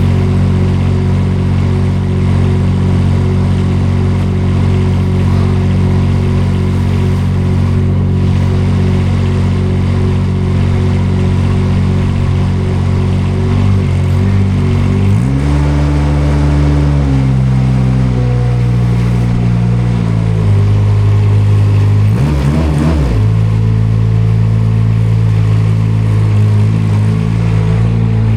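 Front loader's engine running steadily, its engine speed shifting about halfway through and again briefly a few seconds later.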